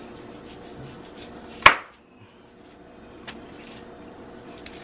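Knife trimming fat from a beef brisket on a wooden cutting board: faint slicing and rubbing, with one sharp knock of the blade or meat on the board about two seconds in and a lighter tick a little later.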